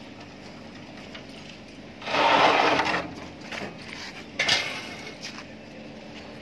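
Steel mould plate carrying a freshly cast concrete panel scraping for about a second as it is slid off the vibrating table onto a handcart frame, then a single ringing metal clink a couple of seconds later.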